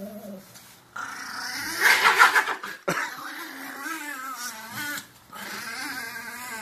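Chihuahua growling and snarling at being dressed in a coat. A loud, harsh snarl comes about a second in, followed by a wavering growl that breaks off briefly and starts again.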